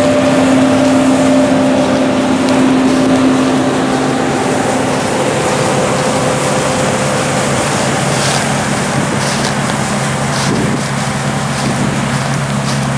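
Heavy diesel engines of harvest machinery running steadily. A higher engine tone fades out about five seconds in and a lower one carries on, with a few short sharp noises around eight to ten seconds.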